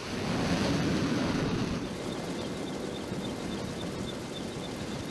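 Jet engine roar from an F-35B climbing away after a ski-jump takeoff, easing off about two seconds in to a quieter steady rush.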